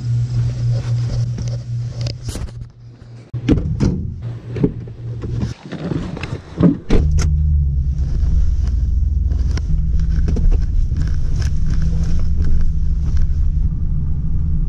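GMC pickup truck with its engine running, a steady low hum. There is a few seconds of knocks and clatter as the driver swings in, a heavy thump about seven seconds in as the door shuts, and then the steady low rumble of the truck driving from inside the cab.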